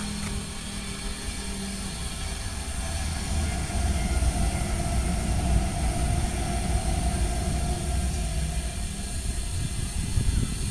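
Jakarta–Bandung high-speed electric train (KCIC400AF, 'Whoosh') passing at speed on an elevated concrete viaduct: a rumbling rush that swells a few seconds in and stays up through the rest.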